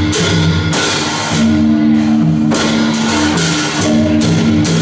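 Traditional Northern Thai percussion ensemble playing live: a large barrel drum, gongs and hand cymbals keep a steady beat. The cymbals clash roughly every half second over the sustained hum of the gongs.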